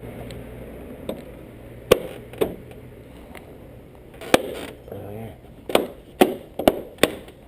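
Irregular sharp knocks and clicks from hand work fitting the front bumper and its trim onto a BMW E34, coming every half second or so near the end.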